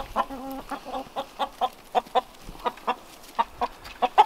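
A flock of backyard hens clucking in short, irregular notes while they crowd in to peck worms from a hand, with a louder flurry right at the end as one hen flaps up into the air.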